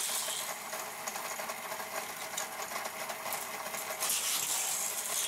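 Hot Wheels Split Vision die-cast car rolling around a plastic track and loop, driven by a battery-powered booster whose spinning wheels whir steadily. The car gets louder for about a second, from about four seconds in. Its wheels make a rolling noise, which the owner takes for a bad wheel.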